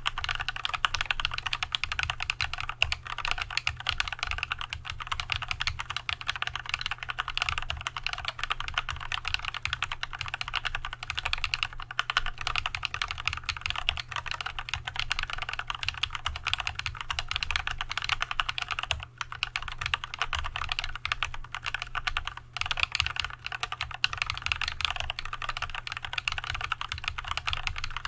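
Fast, continuous typing on an Archon AK87 mechanical keyboard fitted with Tealios V2 linear switches lubed with Christo129 and with Leopold keycaps: a dense, even run of key strokes. It breaks off for a moment twice in the second half.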